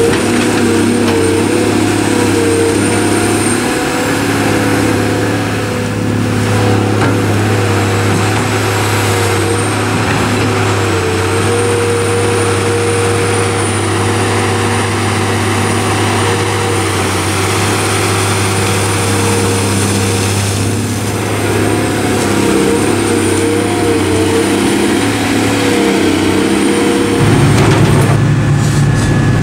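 CAT 345B L Series II hydraulic excavator's diesel engine running steadily under load while it digs and swings, with faint steady whines above the engine note. The low engine sound shifts and grows fuller near the end.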